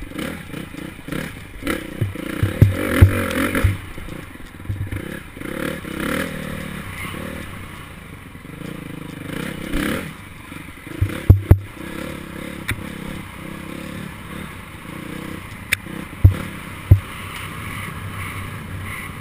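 Dirt bike engine running as the bike is ridden over a rough trail, with scraping and rattling from the bike and sharp knocks a little past halfway and twice near the end.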